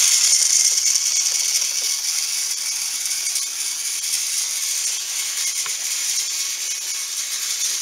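Battery-powered TrackMaster Sir Handel toy engine running fast on plastic track: a steady, high whirring rattle of its small motor and gears, growing slightly fainter as it moves away.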